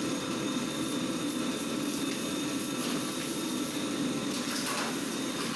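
Baguette-moulding machine running steadily, its motor and rollers giving a constant mechanical hum.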